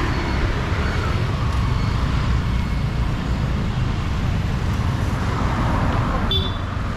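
Street traffic: motorbike and car engines passing in a steady rumble, with one short, sharp, high sound about six seconds in.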